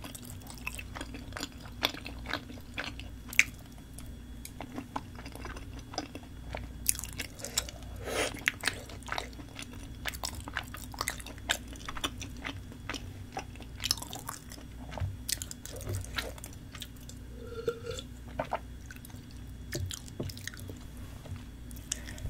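A person chewing and biting spicy tteokbokki rice cakes, with many irregular sharp clicks, some of them chopsticks tapping the bowl.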